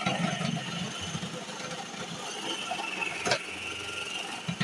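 Electric food processor motor running with a steady high whine while peeled moringa roots are pushed down the feed tube onto the grating disc, a rough grinding underneath. A single sharp knock a little past three seconds in.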